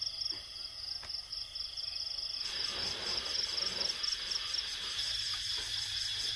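Insect chorus trilling steadily in a fast, pulsing rhythm, with a broader rustling noise coming in about two and a half seconds in.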